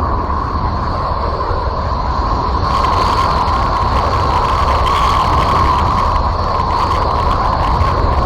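Steady, rumbling space drone: a 'planet sound' made from spacecraft radio and plasma-wave recordings turned into audio, with an even hiss, a held tone and a deep rumble underneath.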